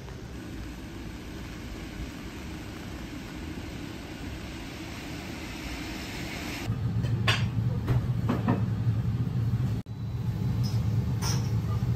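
Night street ambience: a steady hiss that swells over several seconds. Then an abrupt change to a restaurant interior: a loud steady low hum with a few clinks and knocks.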